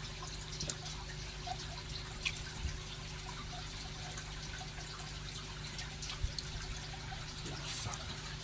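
Small splashes and drips of water as a hand and a mesh sieve move through a shallow plastic tub of koi fry, with a somewhat louder splash near the end, over a steady low hum.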